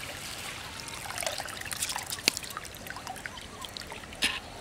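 Water trickling and dripping as a hand scoops soaked long-grain rice out of its soaking water in a steel basin, with small clicks and a sharp tap about two seconds in.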